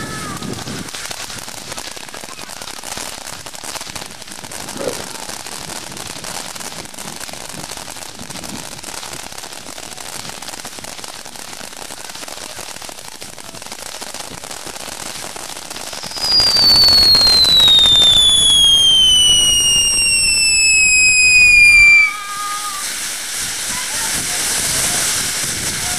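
Ground fountain fireworks spraying sparks with a steady hiss and crackle. About sixteen seconds in, a loud whistle starts and falls steadily in pitch for about six seconds, then cuts off sharply.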